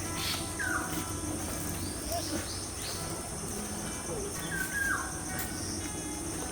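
Wild birds calling outdoors: a short downward-sliding whistled note about a second in and again near the end, with a few quicker higher chirps in between, over a steady high-pitched insect drone.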